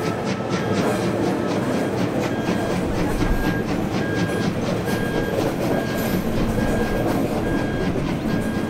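Passenger coaches of a steam-hauled train rolling past directly below, with a steady rumble of wheels on the rails and a running clickety-clack.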